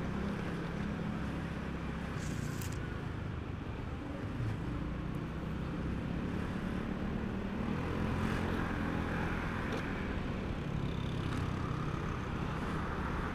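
Motorcycle engine running at low, steady speed with road and traffic noise around it, recorded from the rider's own bike as it rolls through slow city traffic.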